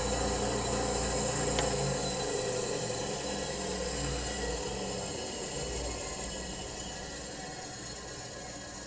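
Delta 9-inch benchtop bandsaw running unloaded and gradually winding down, its motor and wheel hum fading steadily, with a light click about a second and a half in.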